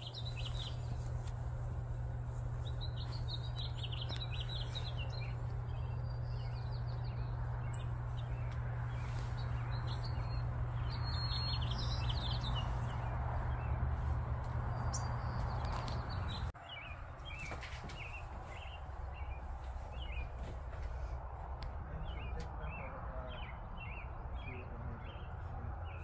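Birds singing: many short chirps and song phrases from several birds, over a steady low background hum that drops away suddenly about 16 seconds in.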